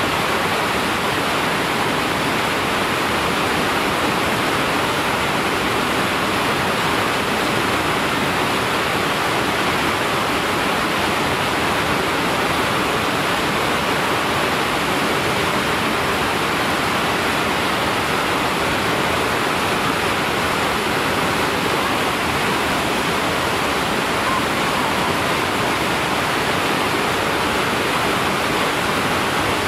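Steady, loud rush of a big whitewater rapid: river water pouring through rocks and breaking waves, an even noise that does not change.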